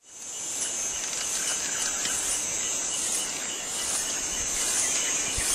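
Insects in a steady, high-pitched chorus, fading in at the start, over an even background hiss of open-air ambience.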